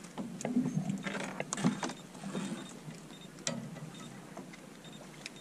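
Scattered knocks, clicks and rustling of an angler handling his rod and a just-landed fish in a small fishing boat, the sharpest knocks about half a second, a second and a half, and three and a half seconds in.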